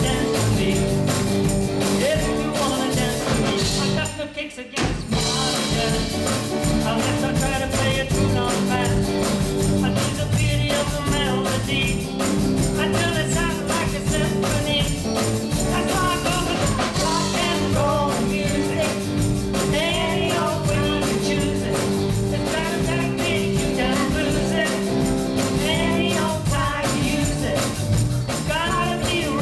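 Live rock and roll band playing: electric guitars, bass and drums with vocals. The band cuts out for about a second around four seconds in, then comes straight back in.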